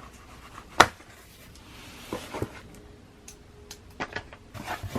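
A package being opened by hand: one sharp snap about a second in, then scattered softer clicks and rustling as the packaging is handled.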